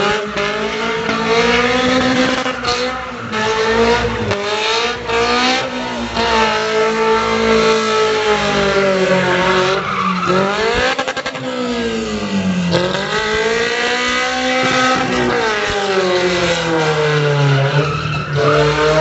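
Toyota 3S-GE four-cylinder engine revving, its pitch rising and falling in slow swells several times. The engine has piston slap from overheating.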